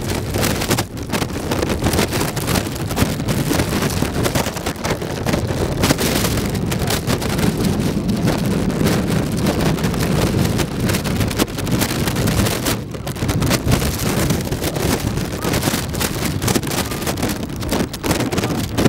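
Wind blowing across the microphone: a loud, uneven rushing noise that rises and falls in gusts.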